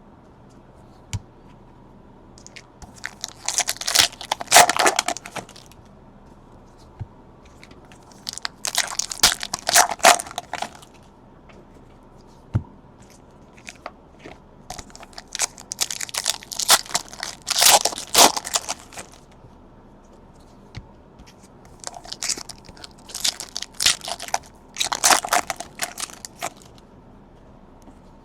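Trading card pack wrappers being torn open and crinkled, in four separate bursts of crackling a few seconds apart.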